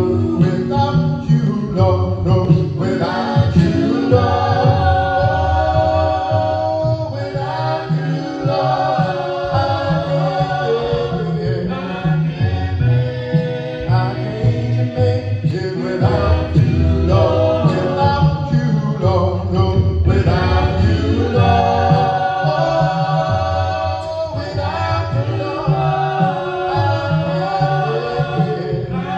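Gospel music with singing.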